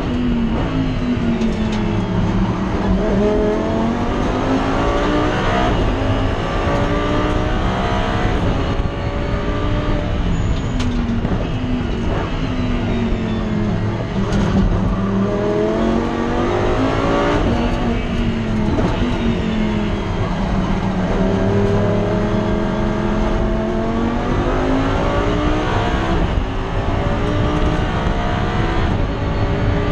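Race car engine heard from inside the cockpit at racing speed. Its revs repeatedly climb through the gears and drop sharply on downshifts and braking for corners, with a few short clicks near the middle.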